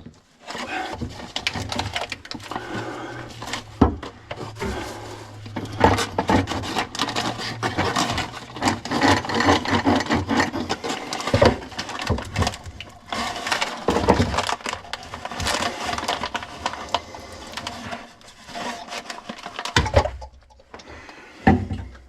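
Irregular knocking, scraping and rattling of hard tools and pipe parts being worked under a kitchen sink. A steady low motor hum runs from about a second in to about eight seconds.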